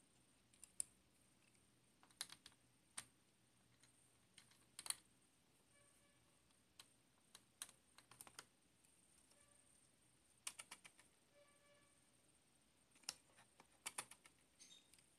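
Scattered light clicks and taps, some in quick clusters, from a precision screwdriver and fingers working on small screws and parts inside an opened MacBook Pro; faint overall.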